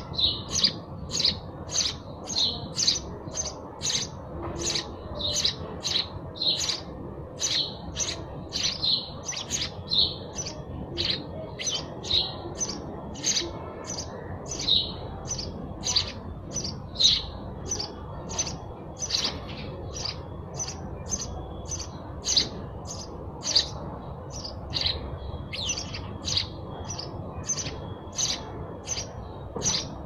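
House sparrow chirping over and over in a steady run, about two sharp chirps a second.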